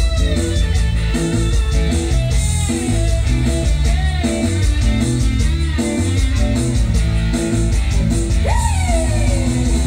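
Loud band music led by electric guitar over a heavy bass line. About eight and a half seconds in, a note slides steeply down in pitch.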